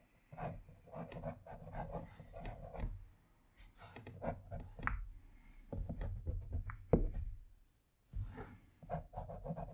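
Graphite pencil sketching on watercolour paper: irregular short scratching strokes and light taps as small figures are drawn in.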